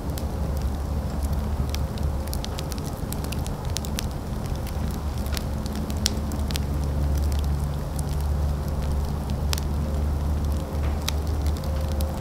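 A fire burning, with irregular sharp crackles and pops over a steady low rumble.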